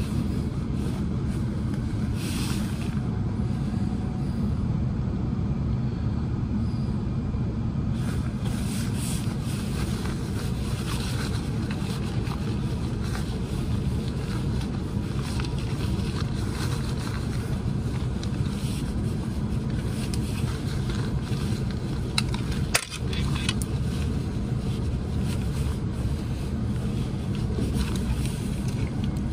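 Steady low rumble of a train running on the line, with one sharp click about three quarters of the way through.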